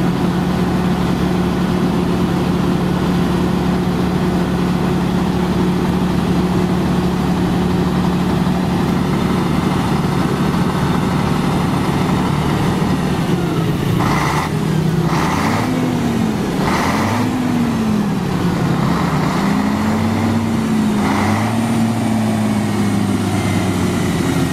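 Heavy truck's diesel engine idling steadily, then revved up and down several times in the second half, with several short hisses among the revs.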